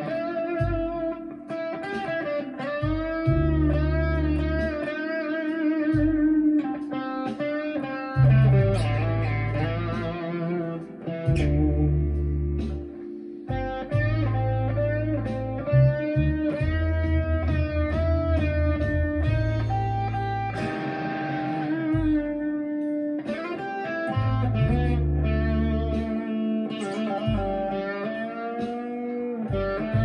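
Chapman ML1 Standard Traditional electric guitar played through a Marshall MG15CFX amp with a Behringer vintage overdrive pedal. A lead line with many notes bent up and down, over low notes that come and go.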